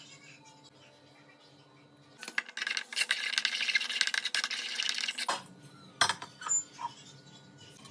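A metal utensil clinking rapidly against a dish for about three seconds, then a few single clinks.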